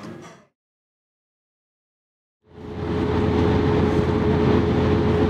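Dish and cutlery clatter fades out into about two seconds of silence. Then the steady cabin noise of a car on the road fades in: a low engine and tyre drone with a constant hum above it.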